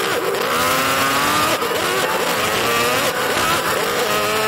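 Crowd cheering and shouting, with several voices in long drawn-out calls that glide up and down; one long held shout begins near the end as the raider is brought down.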